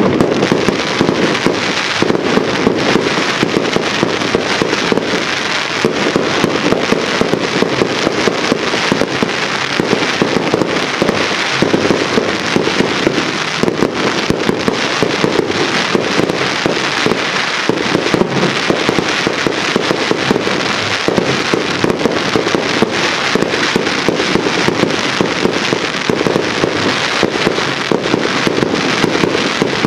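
Fireworks going off in a dense, continuous barrage of crackling and popping, with no let-up.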